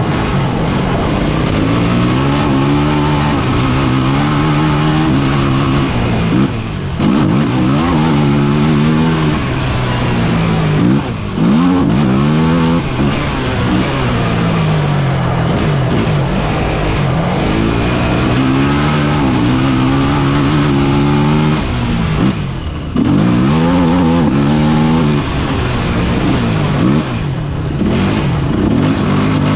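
KTM EXC enduro motorcycle engine heard onboard under hard acceleration, its pitch climbing repeatedly as it revs up through the gears. It drops off briefly about four times as the throttle closes between pulls.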